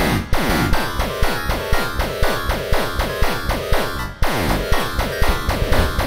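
Extremely dense MIDI file playback in the black-MIDI style: masses of overlapping synthesised notes sound at once in a cluttered wall of sound with a fast repeating pattern. The sound drops out briefly about four seconds in, then comes straight back.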